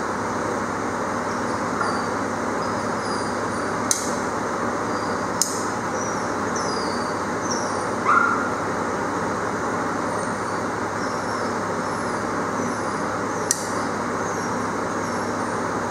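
Steady rushing background noise, broken by a few sharp clicks from a caulking gun and one short louder burst about halfway through, as marine silicone is pumped into bolt holes in an aluminium boat transom.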